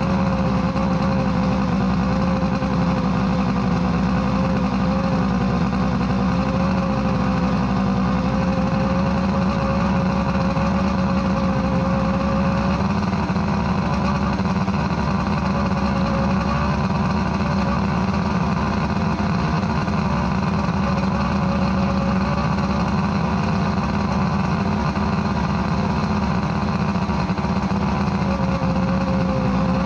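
1978 Johnson 115 hp Sea Horse V4 two-stroke outboard running steadily at low speed with its cowling off. One cylinder is not firing properly.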